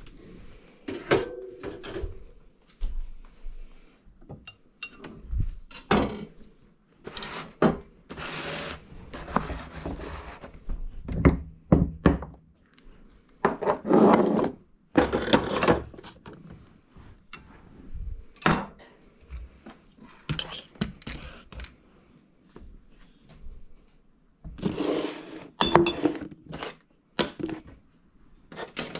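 Kitchen clatter: a dishwasher rack rolled out, then dishes, cutlery, jars and plastic tubs knocked and set down on the counter in a long string of uneven knocks and clinks, with a few longer scraping stretches.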